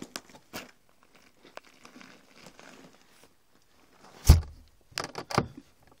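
Scattered rustles and light knocks of things being handled and moved, then one heavy thump about four seconds in and a few sharper knocks just after.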